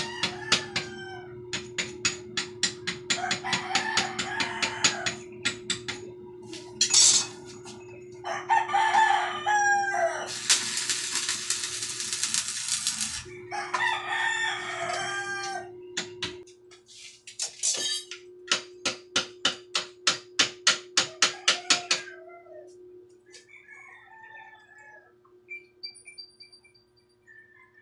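Runs of rapid sharp taps, about four a second, with a rooster crowing several times between them. A loud burst of hiss lasting about three seconds comes near the middle.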